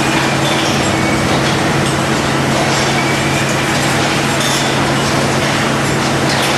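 Steady drone of CRT production-line machinery: a constant low hum under an even background noise, unchanged throughout.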